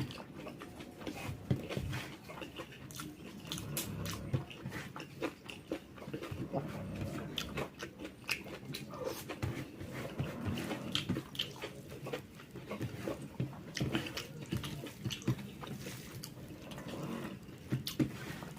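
Close-miked eating of jackfruit curry: chewing and lip smacking, with many short mouth clicks throughout.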